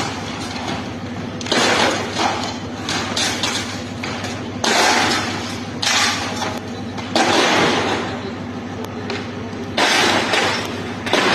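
Bulldozer demolishing a house: about five crashes of breaking masonry and falling rubble, each lasting about a second, over the steady hum of the machine's engine running.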